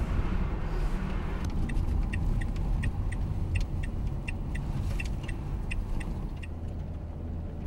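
Van engine and road noise heard from inside the cab while driving: a steady low rumble, with a run of light clinking ticks through the middle.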